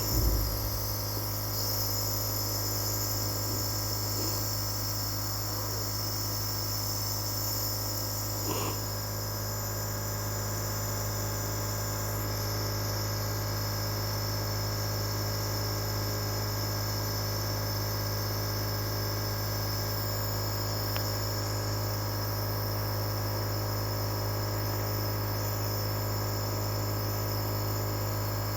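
Medical compressor nebulizer running steadily: a constant motor hum with a high hiss of air and mist. There are brief faint knocks about a second in and again near 9 seconds.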